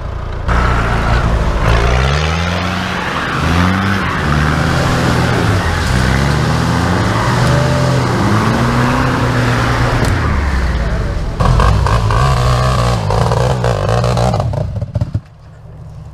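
Off-road 4x4 engine revved hard again and again under load, its pitch climbing with each push over a steady rush of noise, while a Jeep Grand Cherokee stuck in deep mud is dragged out on a tow strap. The sound cuts off sharply near the end.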